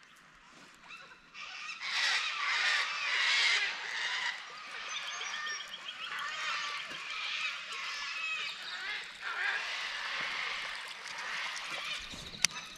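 Laughing kookaburras calling in chorus, a dense run of cackling, chuckling calls that swells about two seconds in and goes on throughout, with a sharp click near the end.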